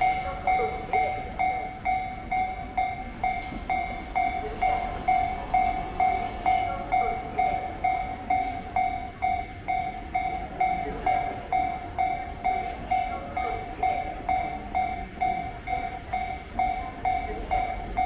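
Japanese railroad crossing warning bell ringing: an electronic two-tone 'kan-kan' chime repeating steadily about twice a second, which signals that a train is approaching the crossing.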